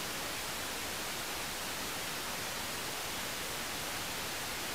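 Steady, even static hiss like white noise, unchanging throughout, with no voice or music over it.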